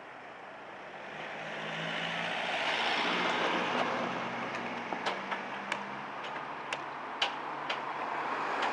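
A motor vehicle's engine running, swelling in level about three seconds in and then easing off, with a string of sharp clicks through the second half.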